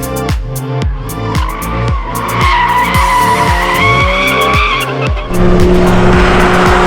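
Porsche 718 Cayman GT4 RS's naturally aspirated 4.0-litre flat-six running hard on track, its pitch held high and climbing a little in the middle. An electronic music track plays over it, with a kick drum about twice a second.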